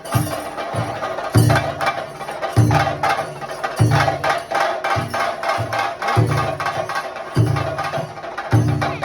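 Theyyam ritual drumming on chenda drums: fast, dense stick strokes over a deep beat that comes round about every 1.2 seconds.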